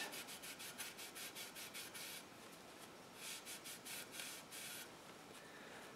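Microfiber cloth wiping polish off plastic-chrome tail light trim in faint, quick back-and-forth strokes. The strokes come in two spells with a short pause a little after two seconds in.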